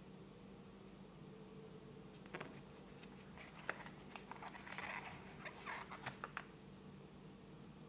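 Paper-and-card packaging rustling and crinkling as the coiled USB-C cable is worked out of its holder in the phone box's inner tray. It comes as a few seconds of crinkles and small clicks, with one sharp tick partway through.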